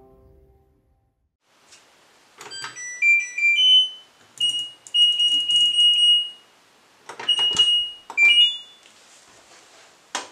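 LG front-loading washing machine's control panel beeping as a program is selected: clicks, each with a high electronic tone, some stepping up in pitch, and one long held beep. A short rising run of beeps about eight seconds in marks the cycle being started, and a sharp click comes near the end.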